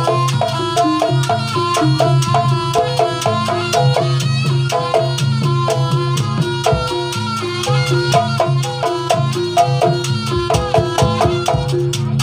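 Live Javanese gamelan music for a jaranan dance: bronze pot gongs and metallophones ringing a fast repeating pattern over a steady low gong tone, driven by a quick even drum beat.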